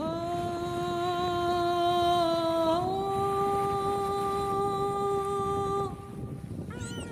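A person humming long held notes, the pitch sliding up a step about three seconds in, over the wash of small waves breaking on a pebble shore. A few quick rising squeaks come near the end.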